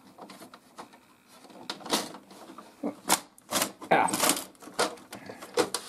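Plastic clicks, knocks and rattles as the parts of an HP OfficeJet Pro 6978 inkjet printer are handled and tugged at, in a string of short, irregular clatters.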